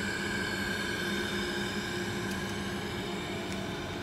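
Automatic three-ply mask-making machine running: a steady mechanical hum with a few constant tones, one high and two low, over an even whir.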